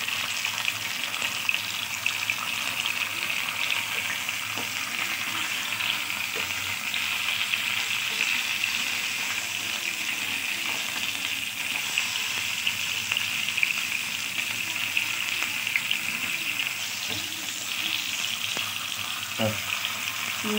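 Whole tilapia shallow-frying in a spoonful or so of oil on a nonstick tawa, the oil sizzling and crackling steadily.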